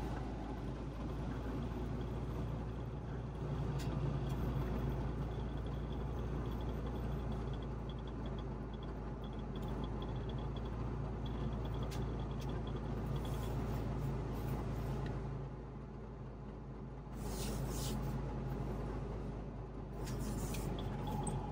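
A Trabant 601's two-cylinder two-stroke engine running with road noise, heard from inside the cabin while driving. The engine sound eases off briefly about 15 seconds in, then picks up again about two seconds later.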